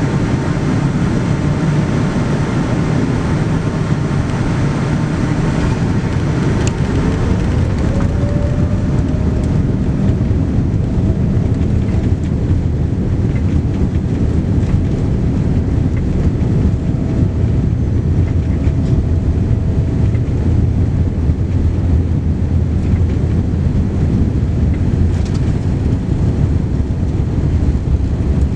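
Cabin noise inside a Boeing 787-9 as its jet engines spool up for takeoff. Under a steady low rumble, a tone rises about seven seconds in and then holds steady.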